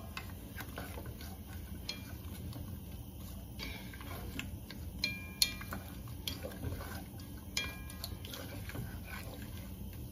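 Wooden spatula stirring and scraping chopped onions and peppers in a large metal pot, with scattered knocks against the pot and a few short ringing clinks around the middle and later on.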